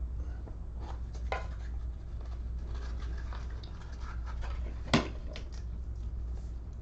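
Scattered light clicks and taps, with one sharp click about five seconds in, over a steady low hum.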